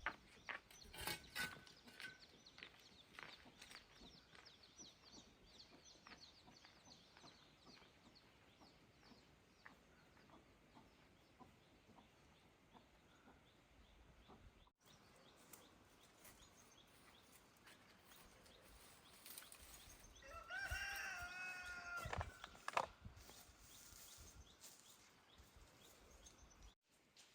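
Quiet farmyard ambience with faint high chirps and a few knocks, then a rooster crowing once, for about a second and a half, about 20 seconds in.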